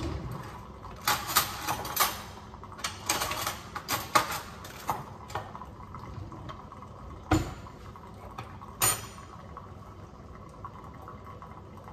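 Hands handling small kitchen items and a packet of electrolyte powder on a counter: a run of light rustles and clicks over the first five seconds, then two sharper clicks about seven and nine seconds in.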